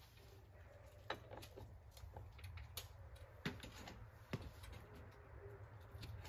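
Faint scattered taps and knocks of hand work on a wooden deck beam, with three sharper knocks, over a low steady rumble.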